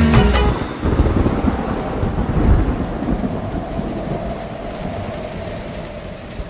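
Rain falling steadily with low rolls of thunder, coming in as the music stops just after the start and fading out gradually.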